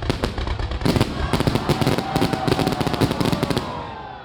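Fireworks going off in a rapid, dense string of bangs and crackles that dies away near the end.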